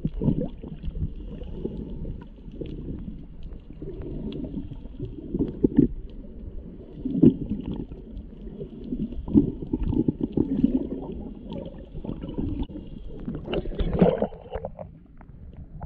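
Muffled underwater sound heard through a submerged camera: an uneven low rumbling and gurgling of water as a snorkeler swims, with a faint steady hiss. Near the end comes a louder rush and splash of water as the camera breaks the surface.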